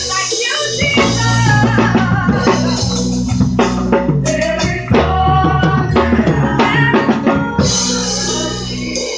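Live drum kit backing a gospel choir: busy snare and tom fills with bass drum and cymbals over sustained low accompaniment and choir voices. Near the end the hits thin out into ringing cymbals.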